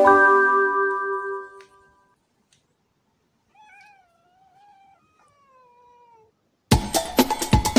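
Music with mallet-instrument notes fades out, then a domestic cat gives two soft, drawn-out meows, the second falling in pitch. Loud drum-backed music cuts in suddenly near the end.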